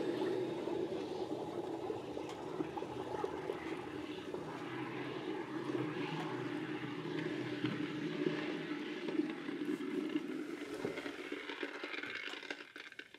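Hot investment-casting flask held under water in a bucket: the water boils and bubbles around it in a steady rush as the investment breaks down off the cast, fading out near the end as the flask cools.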